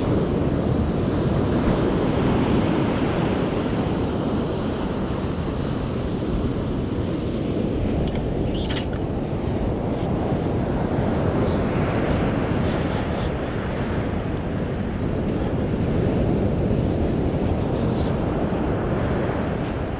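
Ocean surf washing onto a sandy beach, mixed with wind rumbling on the microphone, in slow swells of level. A couple of faint brief clicks, about nine seconds in and near the end.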